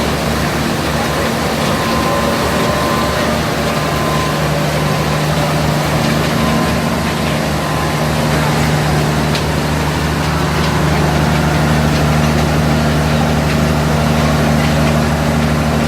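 Sugarcane mill and rotary juice-filter machinery running steadily. Motors and drives give a constant low hum and drone, with a rushing haze above it. The hum grows slightly louder about halfway through.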